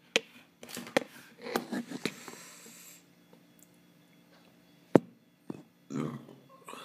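Handling noise from a phone held close while filming: a run of sharp clicks and rubbing for the first three seconds, then quiet with a single sharp click about five seconds in.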